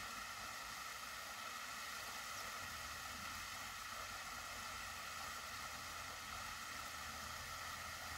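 Steady faint hiss of background noise, with no distinct events.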